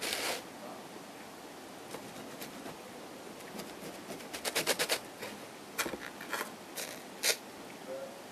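A man chewing a mouthful of salami pizza close to the microphone: scattered short crunchy clicks and mouth smacks, with a quick run of them about four and a half seconds in.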